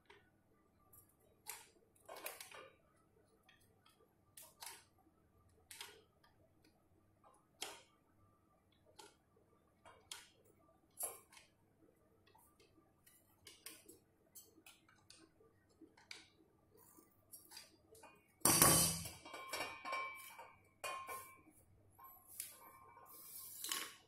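Scattered faint clicks and ticks of a plastic fan blade being handled and tightened onto a small DC motor's shaft. About three-quarters of the way through comes a louder stretch of rustling, clattering handling noise.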